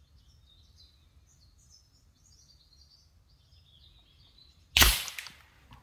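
Small birds chirping, then about five seconds in a single shot from a Daystate Alpha Wolf .30 calibre, 100 ft-lb pre-charged pneumatic air rifle: one sharp crack that dies away within about half a second.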